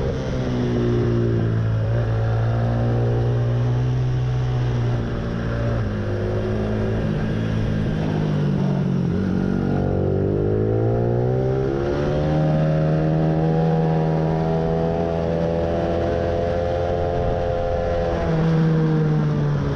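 Motorcycle engine heard from on board on a track lap: the revs fall as it eases off near the start, climb steadily about halfway through, hold high, and drop again near the end.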